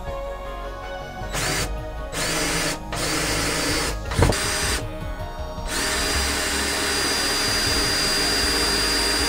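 Cordless drill-driver driving screws: four short runs, each opening with a brief rising motor whine, then a longer steady run over the second half.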